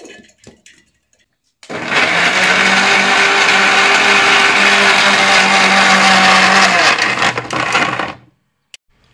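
After a few light clicks, an electric mixer grinder (mixie) starts about two seconds in and runs steadily for about five seconds, grinding chopped coconut with coconut water. It is then switched off and spins down.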